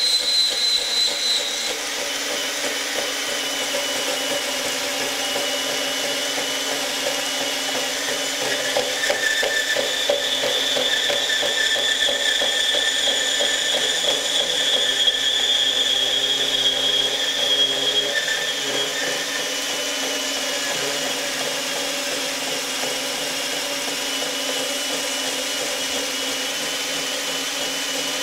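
Ridgid R8604B 18-volt cordless compact band saw running at its top speed setting, its blade cutting through 3/8-inch-thick steel: a steady motor whine over the blade grinding through the metal. It grows louder for about ten seconds in the middle of the cut.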